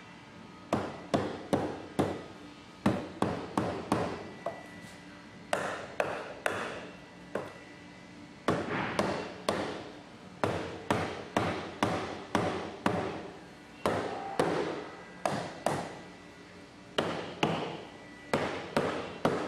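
Repeated blows on wood, tapping the doweled ends of cedar log legs into the holes of the tabletop. The blows come in quick runs of two to four sharp knocks, each ringing briefly.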